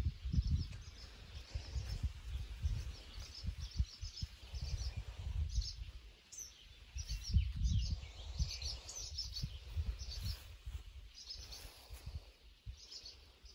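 A bird chirping over and over outdoors, short high chirps about once or twice a second, over a low, uneven rumble on the microphone.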